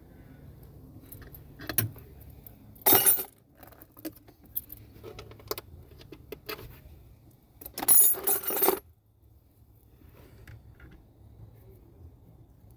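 Metal clinking and rattling, as of hand tools or small metal parts being handled: a short loud jangle about three seconds in and a longer one lasting nearly a second around eight seconds in, with lighter clicks between.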